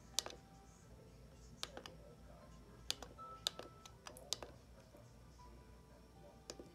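Scattered sharp clicks, about ten, some in quick pairs, like keys or buttons being pressed, over a faint low hum.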